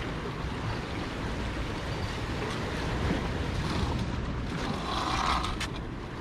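Surf washing on the beach, with wind buffeting the microphone, as a steady rumbling hiss. A short, brighter noise stands out about five seconds in.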